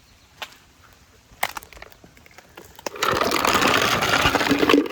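Squirrel feed poured into a feeder: a couple of light knocks, then a loud rattling rush of pieces pouring for nearly two seconds, stopping just before the end.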